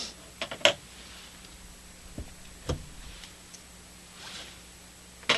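A few scattered clicks and knocks as a radio chassis is handled and pulled out of its cabinet, with a sharper knock near the end, over a faint steady hum.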